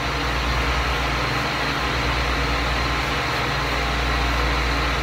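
Steady background noise: a low hum with an even hiss over it, with no distinct knocks or events.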